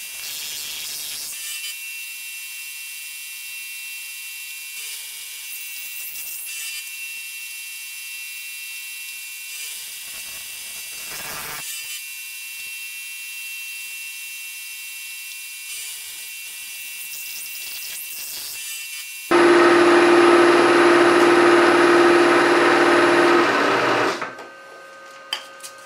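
A milling machine's end mill cutting a pocket into a metal block: the spindle runs with a steady high whine over the scraping of the cut. About 19 seconds in, a much louder cut with a strong steady hum starts suddenly, lasts about five seconds and cuts off abruptly.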